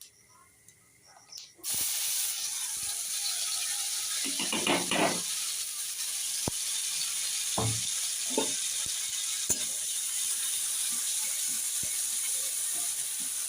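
Ground masala paste dropped into hot oil and cumin in a kadhai. A sudden loud sizzle starts just under two seconds in and runs on steadily as the paste fries, with a few scrapes of stirring against the pan.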